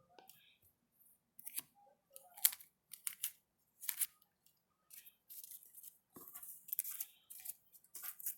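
Trading cards being handled, with a dozen or so short, irregular scraping and rustling strokes as cards slide against each other and their plastic sleeves.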